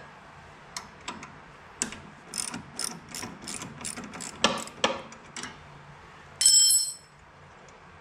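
Socket ratchet clicking in short, uneven runs while loosening the nuts on the snowblower's friction wheel bolts, followed about six and a half seconds in by a brief, louder metallic clatter with a ringing tone.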